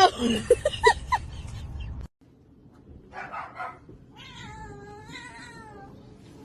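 A cat meowing: a short call, then a long, drawn-out wavering yowl a little past the middle.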